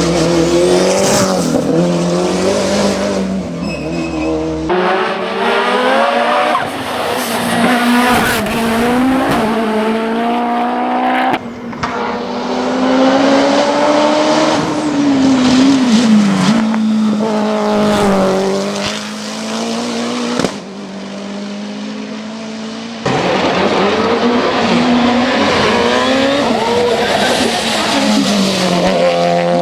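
Mitsubishi Lancer hillclimb prototype's engine at full throttle, revving up through the gears with a sharp drop in pitch at each shift, over several cut-together shots.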